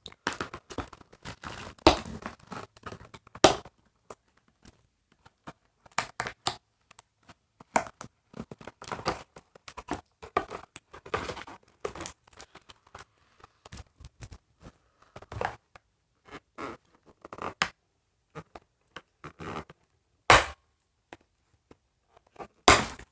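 Doll box packaging being torn and rustled by hand: irregular crinkles and scrapes of cardboard and plastic, with a few louder sharp snaps, the loudest near the end.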